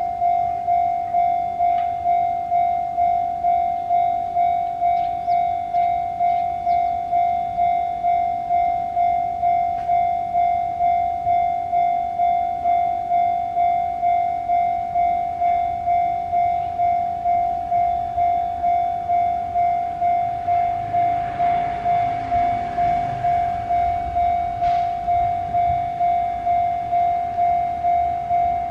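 Japanese railway level crossing's electronic warning bell ringing in an even, repeating clang, nearly two strikes a second, the sign that the barriers are down. About two-thirds of the way through a train rumbles past, swelling and fading.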